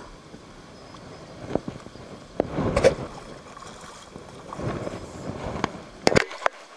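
Clicks, knocks and rustling from a fishing rod being handled right against the camera, several sharp knocks with a double click near the end, over low rough noise.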